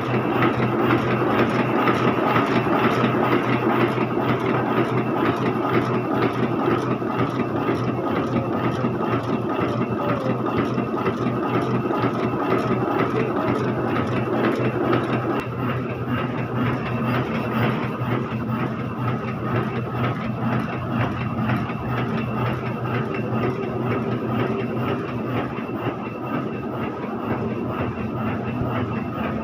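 Heidelberg GTO sheet-fed offset printing press running at speed: a steady mechanical clatter with fast, even clicking of the sheet feed over a low running hum, slightly quieter after about halfway.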